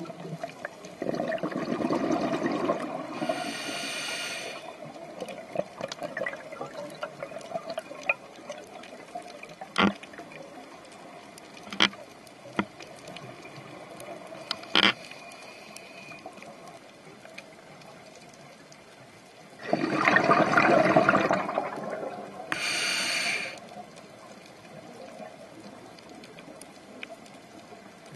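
Scuba diver breathing underwater through a regulator. A gurgling burst of exhaled bubbles is followed by the hiss of an inhale near the start, then a long quieter pause with a few sharp clicks. Another bubbly exhale and hissing inhale come about two-thirds of the way through.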